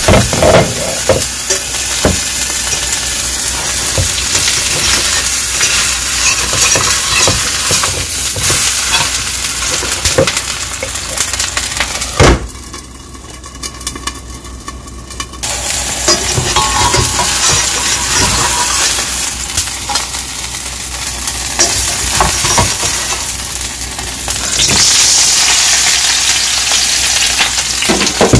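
Flour pancake frying in oil in a stainless steel pan: a steady sizzle with scattered clinks and knocks of utensils and the pan lid. A sharp knock about twelve seconds in is followed by a few seconds where the sizzle is much quieter. The sizzle is loud again near the end as the pancake is turned.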